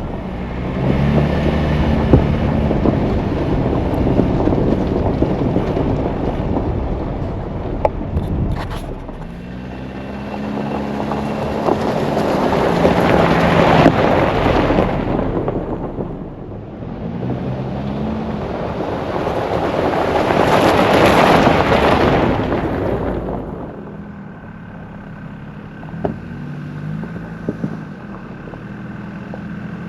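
Off-road 4x4 engine working along a dirt trail, its revs rising and easing off repeatedly, under rushing noise that twice swells loud and fades.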